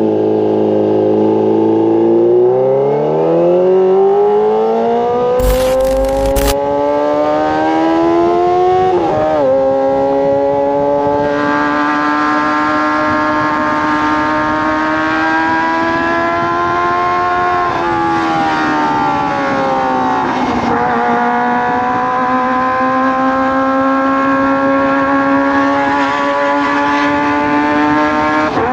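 Kawasaki ZX-25R inline-four engine through a Racefit Slash aftermarket exhaust, under way with revs climbing for the first several seconds. The revs drop briefly at gear changes about nine seconds in and again twice past the middle, holding fairly steady in between. There is a short burst of hiss around six seconds in.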